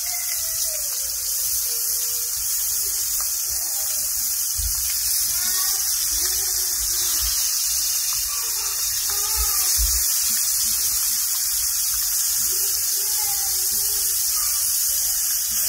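Swai fillets frying in hot olive oil and butter in a nonstick skillet: a steady sizzling hiss, with a few dull bumps as a spatula is worked under the fish to turn it.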